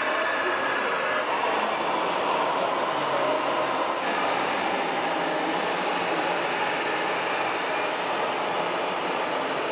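Steady whine of radio-controlled scale dump trucks' electric drive motors and gearboxes as they drive, the pitch shifting slightly with speed, over a constant background noise.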